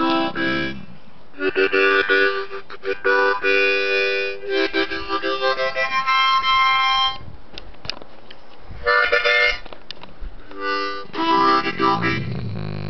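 Harmonica played in short bursts of sustained chords, with brief pauses between phrases. Near the end a dog's low, wavering hum comes in beneath the harmonica and carries on as the playing stops.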